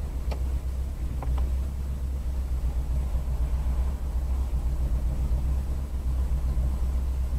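Steady low rumble of a car driving, engine and road noise, with a few faint clicks in the first second or so.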